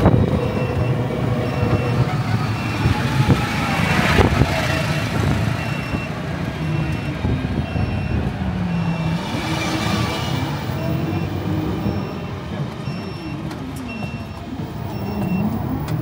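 Engine and road noise of a vehicle heard from inside as it drives, with a short electronic beep repeating at even intervals. Passing traffic swells and fades twice, about four and ten seconds in.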